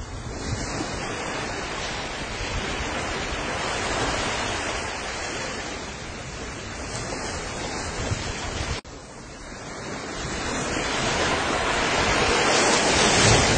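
Volcanic eruption's steady rushing roar. It cuts off abruptly about nine seconds in, then builds again toward the end.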